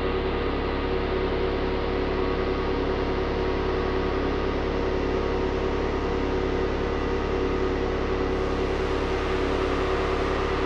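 Analog synthesizer drone: several sustained tones held steady over a dense, noisy wash, with a deep low rumble beneath.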